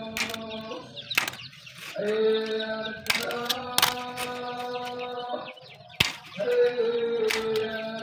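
Hand staple gun firing staples through wire mesh into a wooden frame: about five sharp snaps a second or more apart, the loudest about six seconds in. Background music with long held notes plays underneath.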